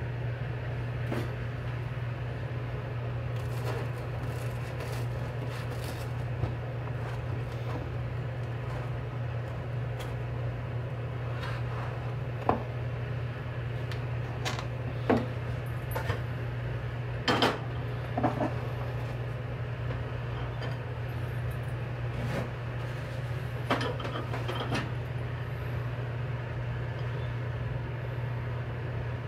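Dishes and kitchen utensils clinking and knocking now and then, with a cluster of sharp clinks around the middle, over a steady low hum.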